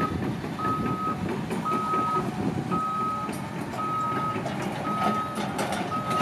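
Backup alarm on heavy construction equipment beeping steadily, about one beep a second, over the low rumble of running engines, with a few sharp clanks.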